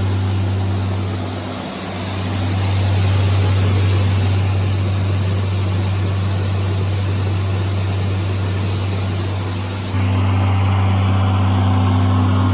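Tractor engine and grain-handling machinery running steadily while a wagon of corn is unloaded, a low engine hum under a wide hiss. The sound dips briefly about two seconds in and changes abruptly about ten seconds in.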